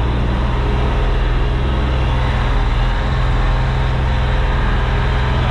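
Sherp ATV's diesel engine running steadily under load as it drives through deep snow, heard from inside the cabin as a steady drone with a dense mechanical noise.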